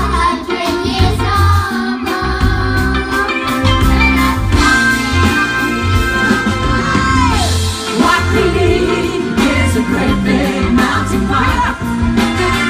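A song sung over instrumental backing with a steady low beat. The voice holds long, wavering notes and slides down on one about two-thirds of the way through.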